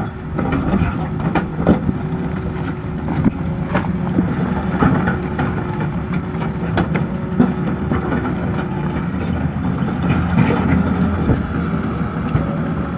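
Tata Hitachi excavator's diesel engine running steadily, with scattered sharp knocks and clanks from the machine working.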